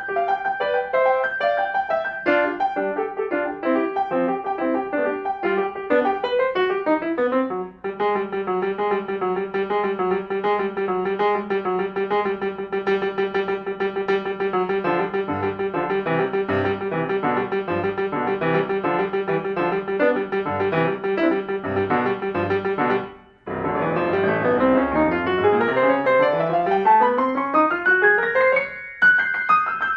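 Solo piano playing quick, busy passages. The music pauses briefly twice, then climbs in a long rising run near the end.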